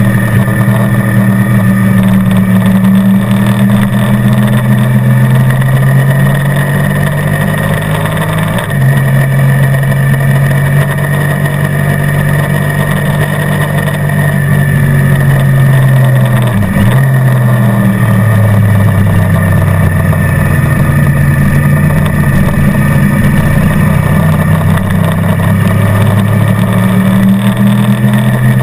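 Motorcycle engine running at track speed, loud and steady. Its note shifts with throttle and gears: it steps up about a third of the way in, dips sharply and briefly just past halfway, then drops lower and climbs again toward the end.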